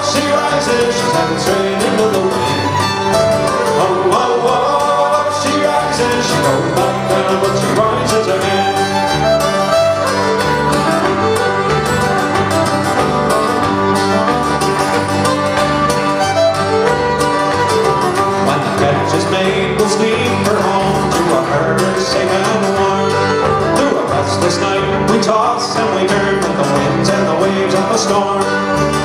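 Live folk band playing an instrumental break, with a fiddle carrying the tune over strummed acoustic guitars and electric bass at a steady beat.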